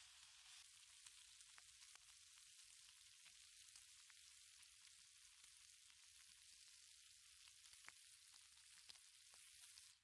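Bacon frying in a pan: a faint, steady sizzle with scattered small pops.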